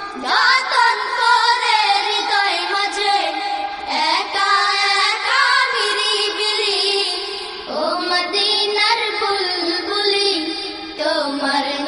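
A high voice singing a Bengali Islamic devotional song in long, wavering held phrases, with musical backing.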